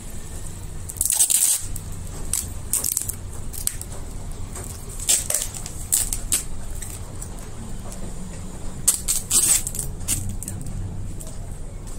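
Plastic stretch-wrap film and cardboard of a shipping box crinkling and rustling as the box is handled and turned, in irregular crackly bursts over a steady low hum.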